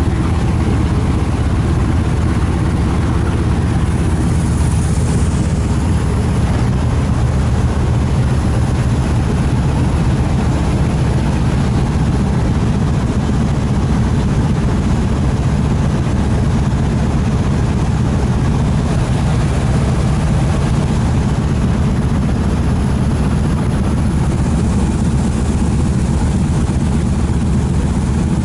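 Diesel engine of a Moskva-type river pleasure boat running steadily while underway at about 14 km/h, heard on board as a constant low drone with an even rushing noise over it.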